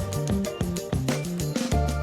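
Background music: an instrumental track with a steady beat and bass line, with guitar-like plucked notes.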